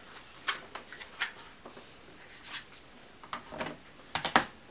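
Plastic USB power banks being handled and set down on one another: a string of light clicks and knocks, with a louder cluster of knocks near the end.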